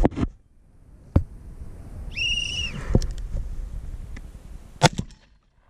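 Electronic shot timer sounding its start beep: one steady high-pitched tone, about two seconds in, lasting just over half a second. A sharp click comes about a second before it, and a loud sharp bang near the end is the first shotgun shot of the stage.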